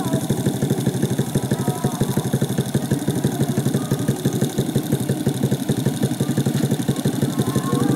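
Motorcycle engine idling steadily, with a fast, even putting rhythm.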